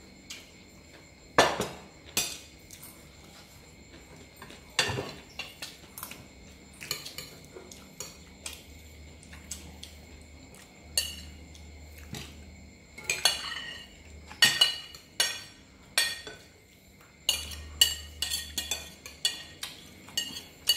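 Metal spoons clinking and scraping against ceramic plates as people eat, in irregular clinks. There are a couple of sharp strikes in the first few seconds and a busier run of clinks in the second half.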